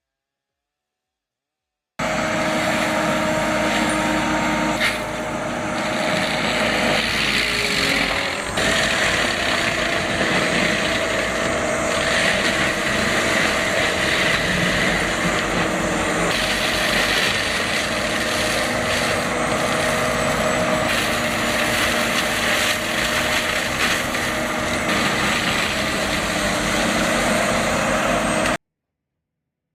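A machine's engine running steadily under load, with a few held tones over a dense mechanical noise. It starts suddenly about two seconds in, changes abruptly a few times where clips are spliced together, and cuts off suddenly near the end.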